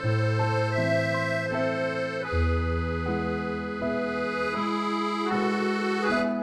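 Background music: sustained chords over a bass line that shifts every second or so.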